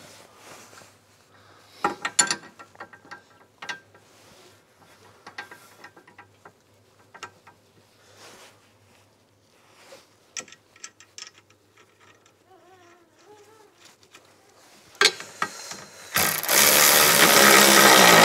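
Scattered metal clicks and clunks of suspension parts being handled and fitted. From about two seconds before the end, a powered wrench runs loud and steady for about three seconds, running nuts onto the rear suspension mountings.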